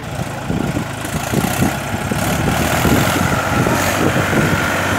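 Tractor diesel engine working hard under load as it drags a stone-laden trolley through mud, growing louder over the first second or two and then holding steady.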